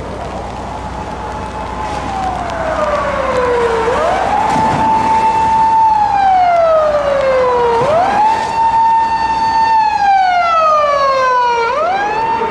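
Japanese police car siren wailing. Each cycle rises quickly, holds high, then slides slowly down, repeating about every four seconds. It grows louder over the first few seconds as the car nears.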